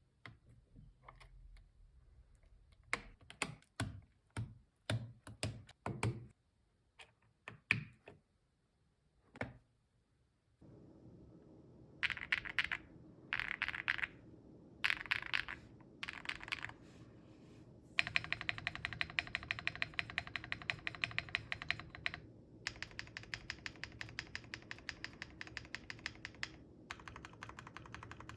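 Zoom65v3 custom mechanical keyboard with lubed, filmed KTT Hyacinth linear switches, a POM plate and PBT Cherry-profile keycaps being typed on. The first ten seconds hold single, spaced keystrokes. After that come short bursts of rapid typing, then long runs of fast, evenly spaced keystrokes over a faint steady hum.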